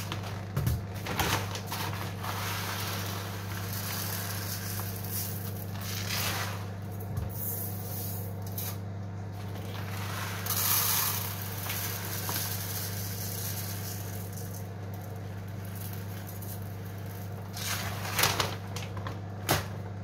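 Dry rice grains pouring from a plastic bag and being scooped with a small plastic cup into a glass bowl, heard as several short rustling rushes of grain, the longest about ten seconds in. Under them runs a steady low hum from a microwave oven that is cooking.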